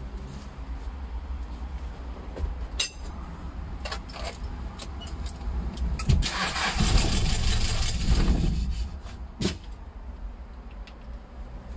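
Toyota 14B four-cylinder diesel engine cranked on its starter for about two seconds, a little after halfway, with the valve cover off. Scattered short clicks and knocks around it.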